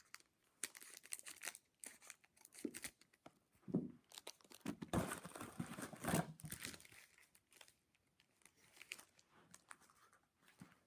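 A football card pack's wrapper being torn open and crinkled by hand: irregular crackling and tearing, loudest about five to six and a half seconds in.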